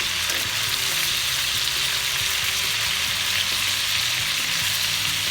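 Boneless chicken breast frying in butter and oil in a pan, a steady sizzle throughout.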